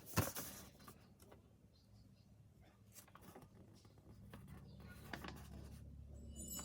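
Faint clicks and light knocks of hands working on computer parts inside a PC case, with a sharper click just after the start, over a steady low hum.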